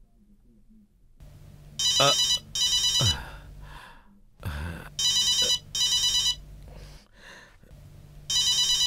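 Mobile phone ringing with an old-style telephone-bell ringtone: short rings in pairs, a new pair about every three seconds, starting about two seconds in.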